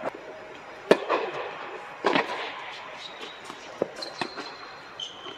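Tennis ball struck by rackets and bouncing on an indoor hard court: a handful of sharp hits with an echoing tail, the loudest about a second in.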